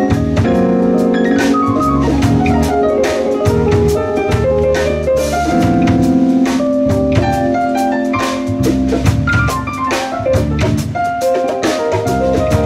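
Small jazz band playing an instrumental passage: drum kit with cymbals keeping time under electric keyboard chords, electric bass and acoustic guitar.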